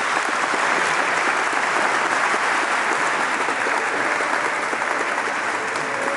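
Wedding congregation applauding steadily, many hands clapping at once, greeting the newlyweds' kiss just after they are pronounced husband and wife.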